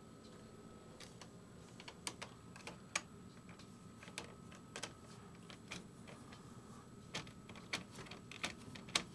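Irregular light clicks and taps, scattered at up to a few a second, over a faint steady hum.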